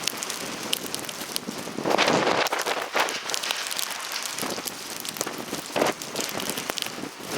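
Snowstorm wind and blowing snow: a steady rain-like hiss full of small crackling ticks, swelling into a stronger gust about two seconds in.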